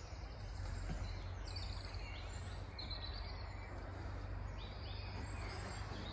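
Dawn outdoor ambience: faint birds chirping now and then over a steady low background rumble.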